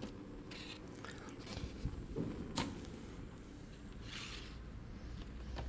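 Faint kitchen handling sounds: a few light knocks and short rustles of utensils and containers, with one sharp click about two and a half seconds in.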